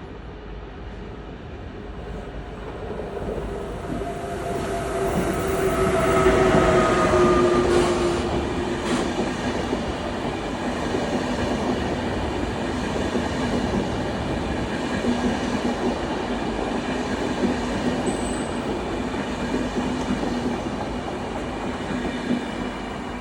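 ÖBB Railjet express train running past, its electric traction whine sliding down in pitch as it comes close. It is loudest about six seconds in, then settles into a steady rolling rumble with a low hum.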